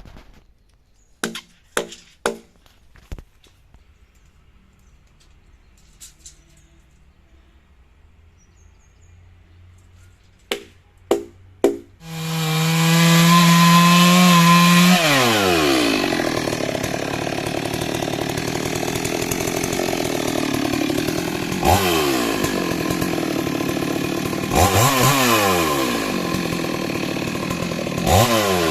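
A few sharp clicks, then a two-stroke Stihl chainsaw starts about twelve seconds in and idles briefly. It then runs at full throttle, its pitch dipping several times as it bites into the coconut trunk.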